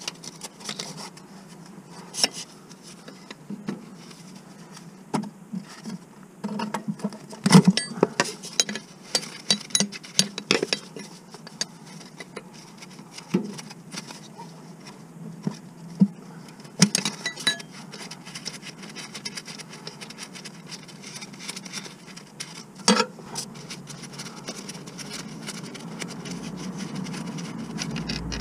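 Ratchet spanner clicking in quick runs as a bolt beside the starter motor is worked, with single sharp metal knocks in between.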